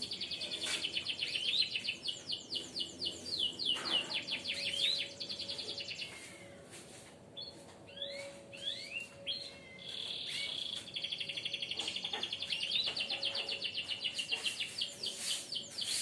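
Songbirds singing in fast trills of high chirps, with a quieter stretch of separate rising notes in the middle before the rapid chirping picks up again.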